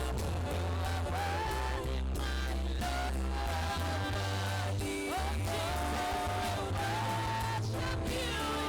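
Live worship music: a band with a steady bass line and guitar under a sung, held melody.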